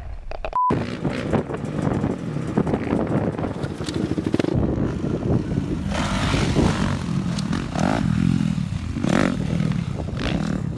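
Motocross dirt bike engines running and revving, their pitch rising and falling, with wind buffeting the microphone.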